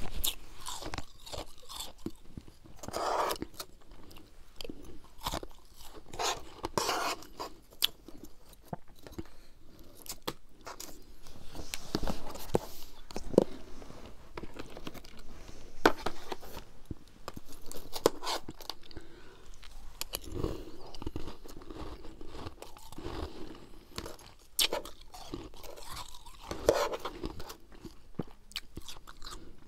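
Close-miked chewing of freezer frost: irregular crunches and crackles as the packed ice crystals are bitten and ground between the teeth.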